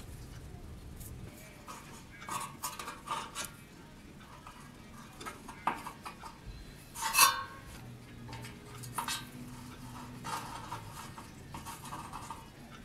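Small metal parts and tools handled at a workbench: scattered light metallic clicks, taps and scrapes, with one sharper clink about seven seconds in.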